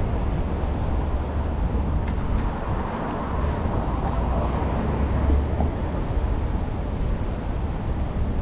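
City street traffic: motor vehicles passing on the road, over a steady low rumble, with a louder pass in the middle.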